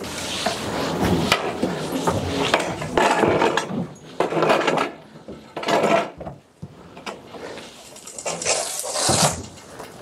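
Young calf moving about in a straw-bedded pen: hooves shuffling and rustling the straw, with irregular knocks and rubs against the wooden boards of the pen.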